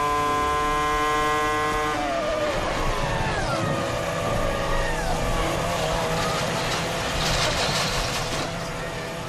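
Formula One McLaren-Mercedes V10 engine heard onboard at steady high revs, then falling in pitch in steps from about two seconds in as the front-right suspension breaks and the car slides off the track, with a rising hiss of skidding tyres.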